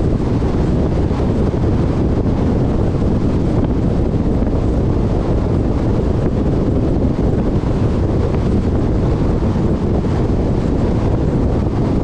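Steady wind buffeting the microphone of a moving car, mixed with the low rumble of tyres on asphalt.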